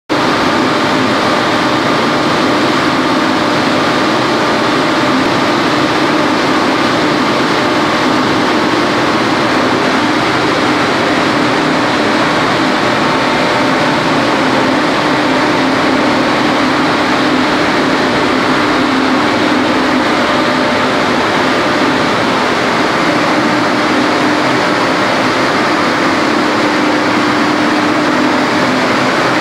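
Small hydropower plant's horizontal water turbine and generator running steadily during commissioning: a loud, even rushing noise with a steady hum.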